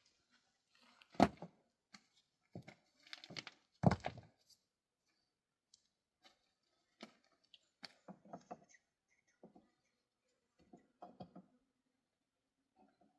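Irregular knocks and rustling handling sounds, two sharper knocks standing out about a second and about four seconds in.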